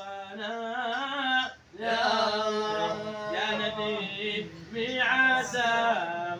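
A man singing an Arabic qasidah in long drawn-out, ornamented phrases, with short breaks for breath between three phrases.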